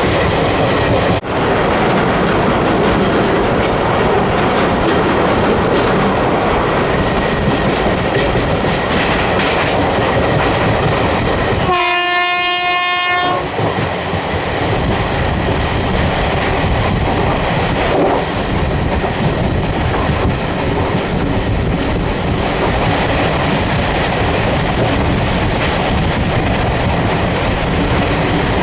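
Passenger train running steadily on the track, hauled by a WCAM electric locomotive. About halfway through, the locomotive's horn sounds once for about a second and a half.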